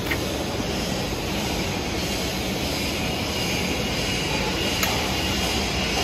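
Steady workshop machinery noise, an even rushing hum with no break, with two faint clicks, one just after the start and one about five seconds in.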